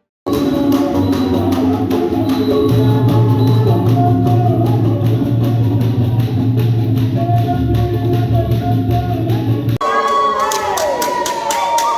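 Music with a steady drum beat, cutting abruptly about ten seconds in to a different passage with sliding high notes.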